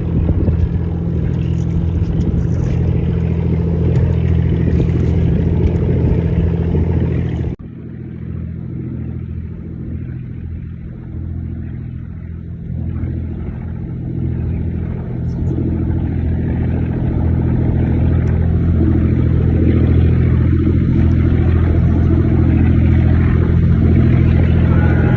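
Small boat's engine running with a steady low hum. About seven seconds in it drops abruptly quieter and duller, then gradually builds back up.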